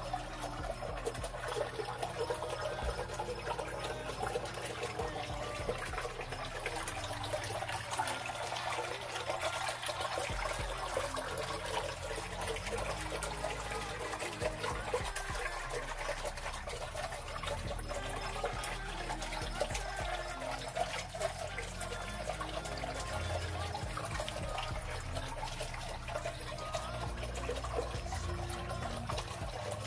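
Running water trickling and splashing steadily, with a faint low hum beneath.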